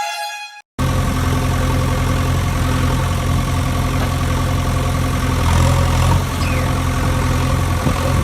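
An engine idling steadily, cutting in abruptly about a second in, with a low, even hum throughout.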